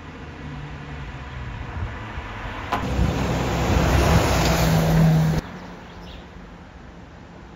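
A Mercedes-Benz Actros 2540 lorry's diesel engine running close by, growing steadily louder with a steady engine hum under the noise. It is loudest about three to five seconds in, then cuts off suddenly.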